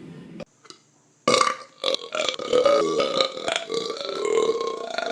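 A person burping loudly and at length, starting about a second in after a brief near-silent cut, the pitch wavering up and down as the belch drags on.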